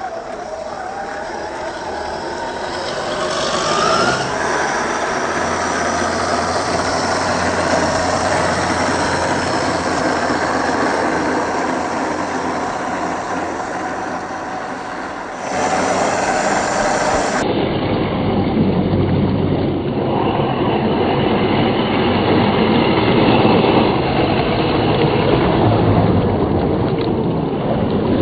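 A 1/10-scale RC off-road truck driving over rough ground: a steady mechanical rumble with a brief rising whine a few seconds in. The sound changes abruptly about two-thirds of the way through, as at a cut.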